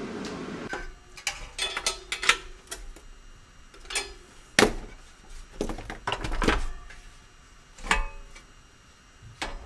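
Irregular sharp metallic clicks and knocks of small hardware being handled, as cage nuts are worked into their mounting holes; the loudest knock comes about halfway through.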